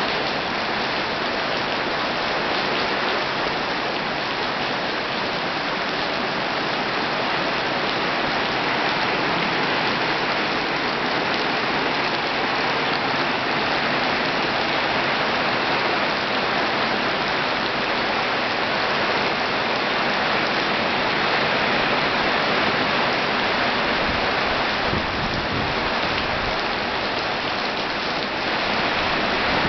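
Heavy rain pouring down steadily. Low buffeting sounds come in during the last few seconds.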